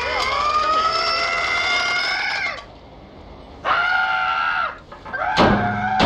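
Drawn-out cries with several pitches at once, gliding slowly upward for about two and a half seconds and then cutting off, and a shorter flat cry around four seconds in. Music with sharp percussive hits starts a little after five seconds in.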